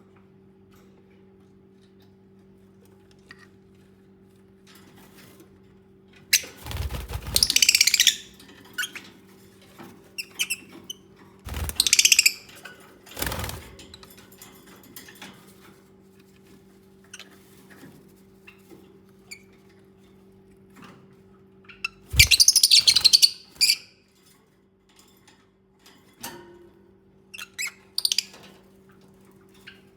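Lovebirds chirping and squawking in about five short, harsh bursts, over a steady low hum.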